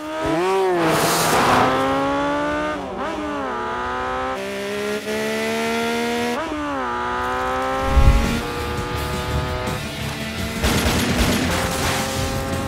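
Motorcycle engines revving hard, pitch climbing and then dropping sharply several times as the throttle is worked and gears change, with a heavy low thump about eight seconds in.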